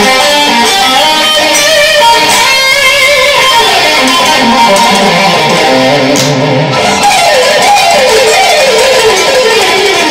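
Electric guitar played in fast lead runs, the notes zigzagging quickly up and down.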